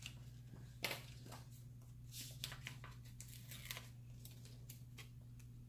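Faint rustling and crinkling of paper and sticker sheets being handled, with a few soft ticks and taps, over a steady low hum.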